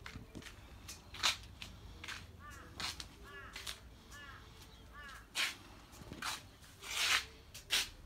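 Pet white cockatoo calling: a few short harsh screeches, and a run of four quick chattering notes about two and a half seconds in.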